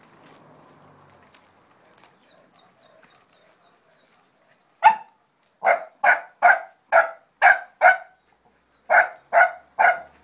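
A dog barking in a quick series. One bark comes about five seconds in, then a run of six rapid barks. After a short pause, three more follow near the end.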